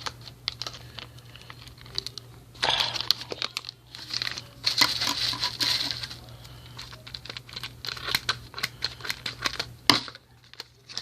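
Plastic packaging crinkling as it is handled, with many small clicks and taps and two louder stretches of crinkling about three and five seconds in.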